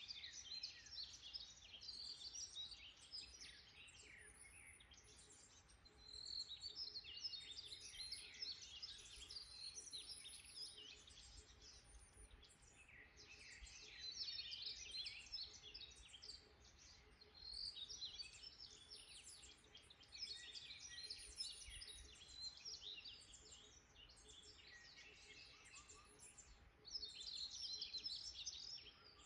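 Several songbirds chirping and trilling in quick high notes, in bouts of a few seconds with short lulls between them, over a faint steady hum.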